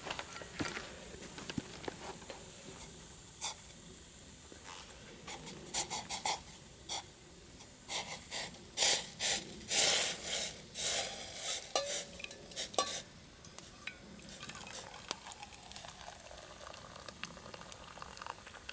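Water poured from a stainless steel billy can into a stainless steel cup in a run of uneven splashes, with a light metal clink near the end of the pour. A small wood fire crackles underneath.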